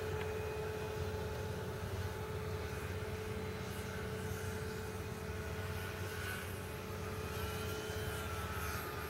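Multiplex FunCub RC plane's brushless electric motor and propeller running steadily in flight. A higher whine rises and then falls in pitch over the last few seconds as the plane passes close.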